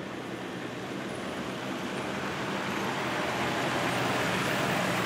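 Four-wheel-drive vehicle driving past, its engine and tyre noise growing louder toward the end.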